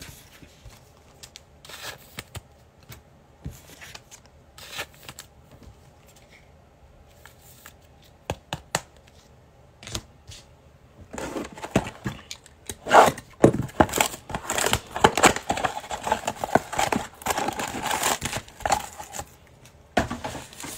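Scattered taps and clicks of a Panini Prizm blaster box being handled, then, from about 11 seconds in, a dense stretch of crinkling and tearing as its wrapping is torn open and the foil card packs are pulled out.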